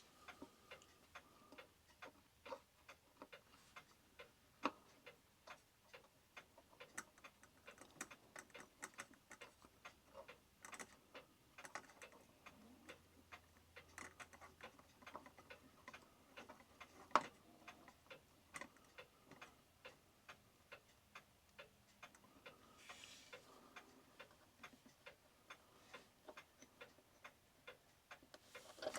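Faint, steady ticking of a mechanical pendulum clock, with one sharper click about two-thirds of the way through.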